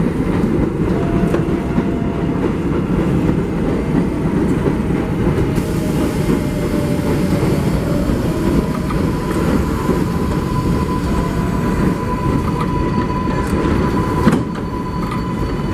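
New York City subway train running on the rails with a loud, steady rumble; a steady high tone from the wheels or motors joins about halfway through.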